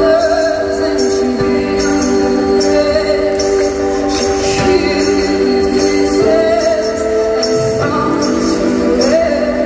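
Live band music recorded from the audience at an arena concert: a woman sings long held notes that glide between pitches, over a steady, regular high jingling percussion beat.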